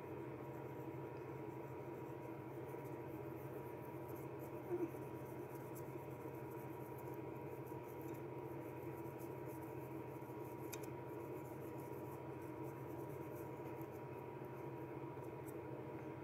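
Felt marker rubbing in short, repeated strokes across a tile as it is coloured in, faint over a steady background hum. There is a single short louder sound about five seconds in.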